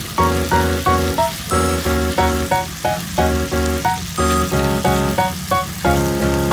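Upbeat electronic background music with a steady beat, over a faint sizzle of chicken pieces sautéing in a pot as they are stirred.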